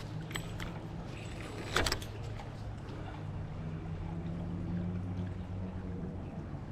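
A steady low mechanical hum, like a distant engine, with scattered light clicks and one sharp knock about two seconds in.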